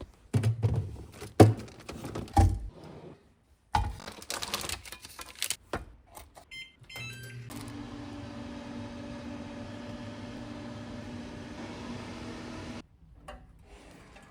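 Microwave oven being used: a few knocks and thumps of handling and the door, a short series of keypad beeps, then the oven running with a steady hum for about five seconds before it cuts off abruptly.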